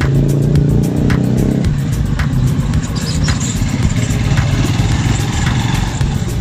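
Motor scooters running at low speed, with a steady low rumble and music carrying a faint beat about once a second.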